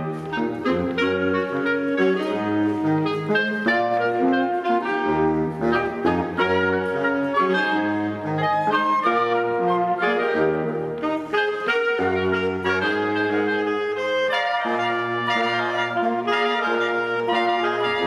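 Live woodwind ensemble of flute and saxophones with other reeds playing a busy piece, several melodic lines moving at once over a low, stepping bass line.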